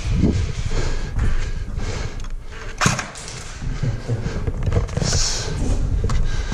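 Footsteps of people moving quickly through empty rooms, with gear and clothing rustling and a sharp knock about three seconds in.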